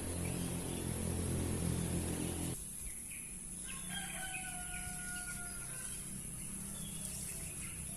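A low droning sound cuts off sharply about two and a half seconds in. About a second later a rooster crows once, a long held call lasting a couple of seconds.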